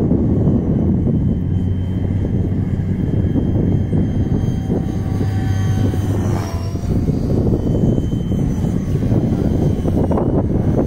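Electric 500-size RC helicopter (Align T-Rex 500X) in flight: a steady drone of rotor and motor, with a higher whine that glides down in pitch about six seconds in as it passes.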